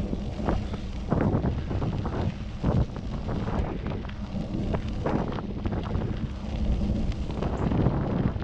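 Wind buffeting the microphone of a handlebar-mounted camera on a moving bicycle: a low, uneven rumble with irregular gusts.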